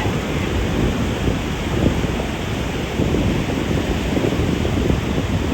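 Ocean surf breaking and washing on a sandy beach, a steady rushing noise heaviest in the low end.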